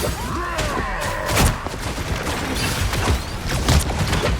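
Video game battle audio: repeated gunfire and impacts over a busy mix of game sound effects.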